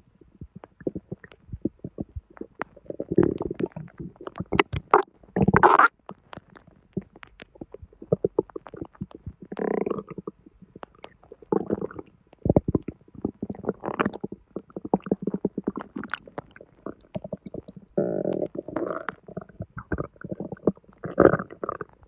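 Abdominal bowel sounds: irregular gurgling and quick crackling of gas and fluid moving through the gut of someone with recent constipation. There is a louder burst about five to six seconds in.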